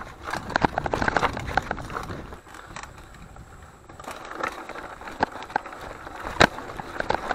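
Mountain bike rolling over rough trail ground: a dense run of rattles and clicks from the bike, with a sharp knock about six and a half seconds in.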